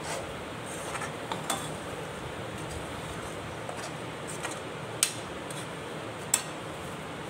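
Metal spatula stirring and scraping thick masala paste in a metal kadhai over a steady frying sizzle, with a few sharp clinks of the spatula against the pan, the two loudest in the second half.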